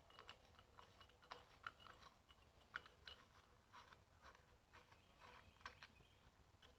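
Near silence with faint, irregular small clicks and light taps, several a second.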